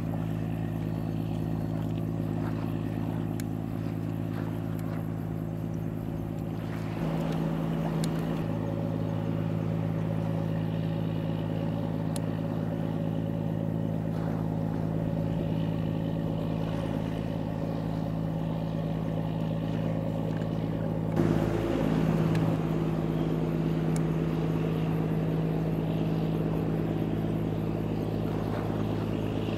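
Steady low drone of a boat's diesel engine, with a brief louder swell about three-quarters of the way through, where a pitch glides downward.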